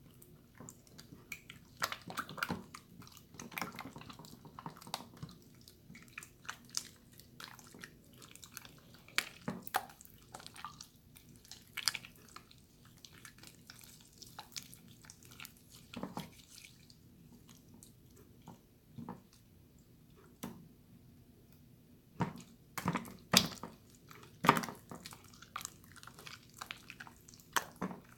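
Water slime being handled and squished: irregular wet squelches, small pops and clicks, coming in clusters, with the loudest ones near the end.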